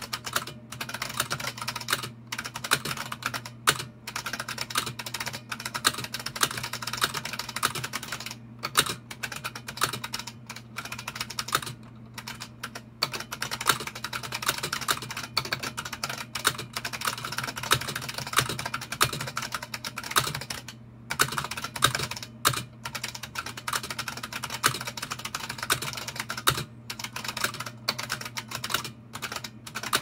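Fast continuous typing on an F77 Model F keyboard: a rapid stream of buckling-spring key presses, broken by a few brief pauses.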